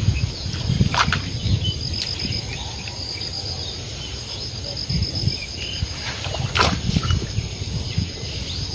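Insects chirping in a steady, high repeating trill over low rustling from a net being handled in the grass at the water's edge, with two sharp clicks, one about a second in and one near the end.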